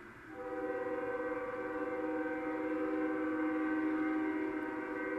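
Union Pacific locomotive's Nathan K5HL five-chime air horn sounding one long, steady chord that starts just after the beginning, heard through a computer's speaker from a webcam feed.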